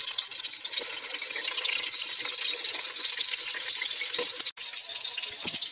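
Stuffed bitter gourds (karela) sizzling as they fry in hot mustard and cooking oil: a steady, bright hiss, briefly cutting out about four and a half seconds in.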